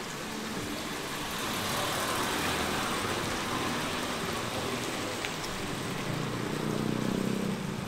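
Car traffic on a wet street: tyre hiss swells over the first few seconds, then a low engine hum near the end, against a steady wash of rain-soaked street noise.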